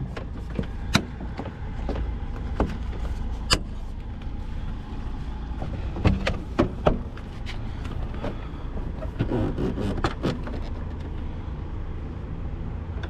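Plastic lamp cover being fitted back into place after a bulb change: a scattering of sharp plastic clicks and knocks, several of them snapping it home, over a steady low hum.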